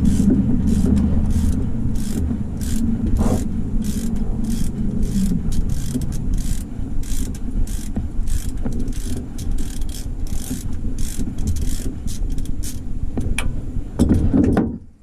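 Socket ratchet wrench clicking in short, even bursts, about three a second, as it is worked back and forth on a bolt, over a low steady rumble; everything cuts off suddenly near the end.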